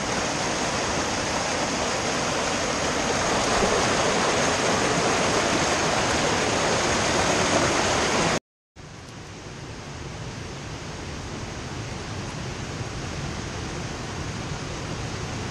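Creek water rushing steadily over boulders in a small cascade. About eight seconds in the sound breaks off abruptly and returns as a quieter, steady rush of flowing water.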